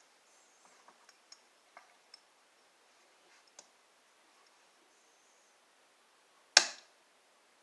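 Faint small clicks and ticks from handling the opened remote's plastic parts, then one loud sharp clack about six and a half seconds in.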